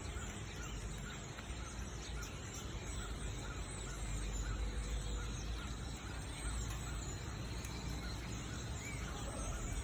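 A large flock of small birds chattering, many short high calls overlapping without a break.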